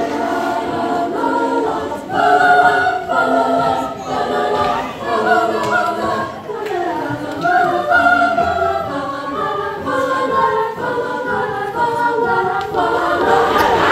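School choir singing together in several voices.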